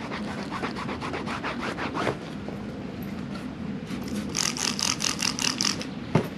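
A cloth scrubbing over a leather car seat wet with soapy water, in quick rhythmic back-and-forth strokes. The strokes turn brighter and hissier for a second or two near the end.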